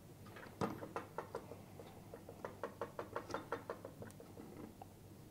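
Phone-clamp mount clicking as it is turned by hand. There is one sharp knock about half a second in, then a quick run of even clicks, about seven a second, through the middle, like a detented joint being ratcheted round.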